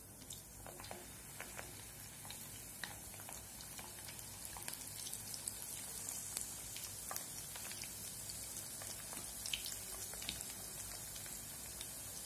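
Bread-crumb-coated jackfruit seed fingers deep-frying in hot oil: a soft, steady sizzle with scattered crackling pops, growing a little louder over the first few seconds as more pieces go into the oil.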